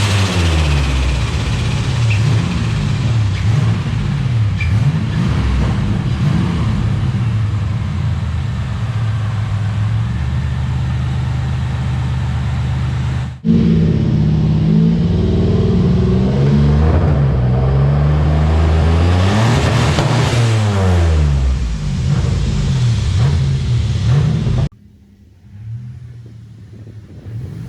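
Turbocharged car engine run hard, its pitch climbing and dropping again and again as it revs up through the rev range and falls back. There is an abrupt break about halfway through, and near the end it suddenly goes much quieter.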